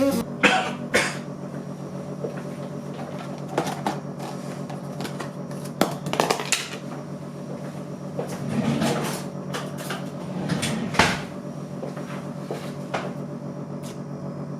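Kitchen handling sounds: a series of sharp clicks and knocks from cupboard doors and dishes over a steady low hum. Everything stops abruptly at the very end.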